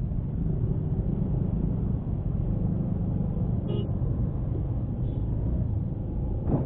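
Steady low rumble of a Honda Scoopy scooter on the move, its engine mixed with road and wind noise. A short vehicle horn toot sounds about halfway through, with a fainter one a second or so later.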